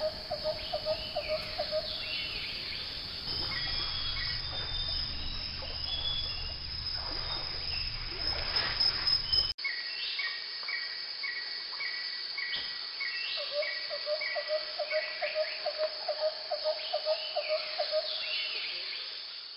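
Jungle nature ambience: a steady high insect drone with repeated cricket-like chirps and bird calls, and a lower call pulsing about five times a second that fades in at the start and again in the second half.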